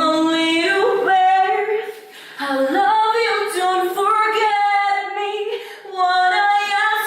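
A female voice singing long, held notes that step smoothly from pitch to pitch, with a short break about two seconds in.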